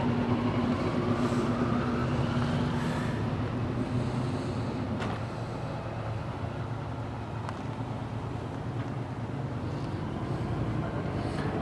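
Steady low mechanical drone, like a vehicle engine running, over outdoor background noise, with a faint click about five seconds in.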